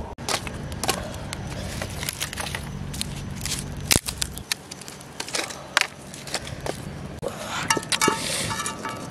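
Wood fire crackling, with sharp cracks and clicks of burning and shifting sticks, then a metal cooking pot set down on the wooden supports near the end with a clank and a brief metallic ringing.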